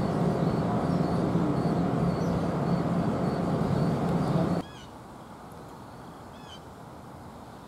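Loud, steady rumble and hum of a train at the platform, cutting off abruptly about four and a half seconds in. A quieter outdoor background follows, with a few short bird chirps.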